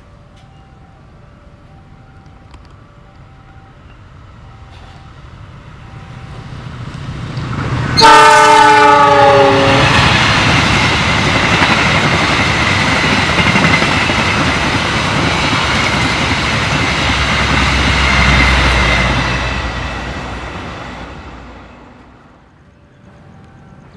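Argo Dwipangga express passenger train, hauled by a diesel locomotive, approaching and passing at speed. About eight seconds in, the locomotive's horn sounds one blast of about two seconds that drops in pitch as it goes by. The loud rush and wheel noise of the coaches follows for about ten seconds, then fades away.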